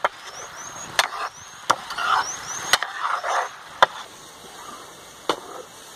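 A steel ladle knocking and scraping against a wok as chicken masala is stirred in it, with sizzling; about six sharp clanks spread unevenly through the stirring.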